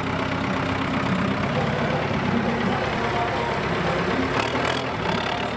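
Ford 6610 tractor's turbocharged four-cylinder diesel engine running at a steady pitch as the tractor drives along.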